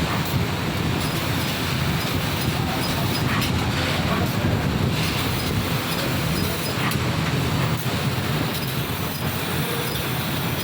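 CNC laser cutting machine running: a steady low rumble with hiss over it and a few faint clicks.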